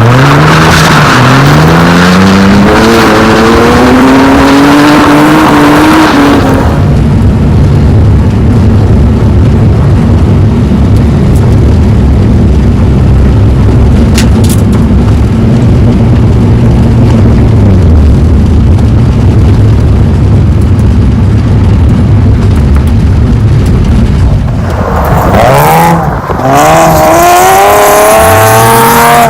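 BMW E36 drift car's engine revving hard, its pitch climbing for several seconds. It then settles to a steadier, lower drone for most of the stretch, and near the end gives several quick rising revs again.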